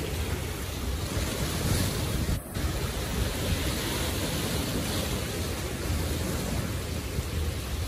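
Sea surf breaking and washing over shoreline rocks in a steady rush, with wind rumbling on the microphone. The sound cuts out for an instant about a third of the way in.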